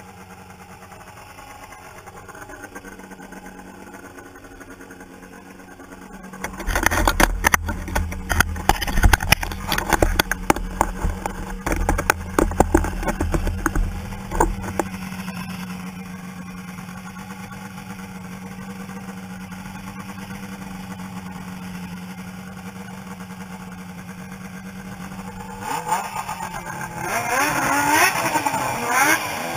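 Yamaha snowmobile engine idling steadily, broken by a stretch of loud close knocks and rustling from about six to fifteen seconds in. Near the end the engine revs up in rising sweeps as the sled pulls away.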